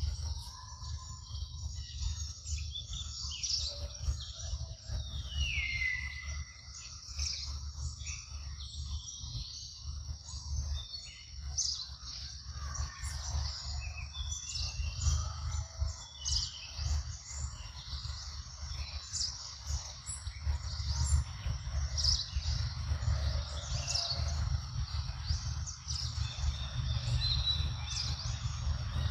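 Forest ambience: scattered bird chirps and calls, one call gliding down in pitch about six seconds in, over a constant low rumble.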